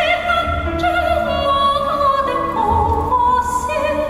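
A singer holds long notes with vibrato in a slowly descending melody over orchestral accompaniment with a low pulsing beat.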